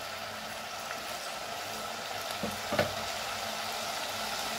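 Mixed vegetables sautéing in oil in a steel pressure cooker: a steady soft sizzle, with two light knocks a little past halfway.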